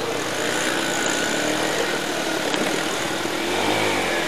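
Motorcycle engine running under way, its pitch shifting slightly, beneath a steady rushing noise.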